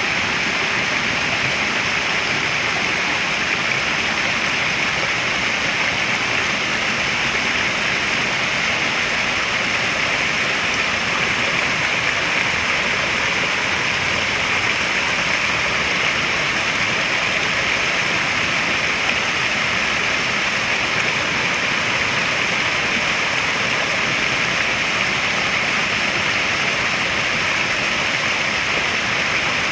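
Running water at a koi pond: a steady, even rush of splashing water that does not change.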